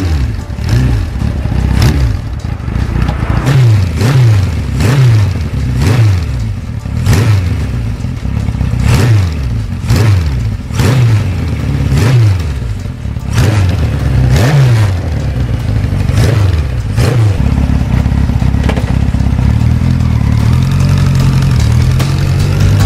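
1974 Kawasaki Z1-B's air-cooled inline-four running through its stock four-pipe exhaust, revved in quick throttle blips about once a second. It then settles to a steadier note, and the revs climb near the end as the bike moves off.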